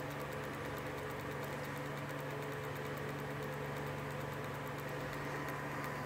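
Homemade pulse motor running steadily, its magnet rotor spinning while a homemade mechanical reed switch pulses the coil: a steady low hum with fast, even ticking.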